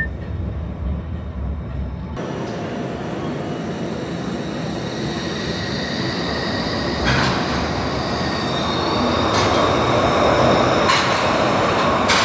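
Inside a moving Glasgow Subway train, low running rumble. About two seconds in, a Glasgow Subway train pulls out of the platform into the tunnel: a rising high whine and rail noise that grow louder as it accelerates, with a few sharp clicks from the wheels.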